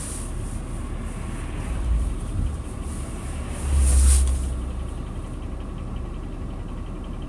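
Steady low rumble of a car heard from inside the cabin while driving, with a louder swell about four seconds in.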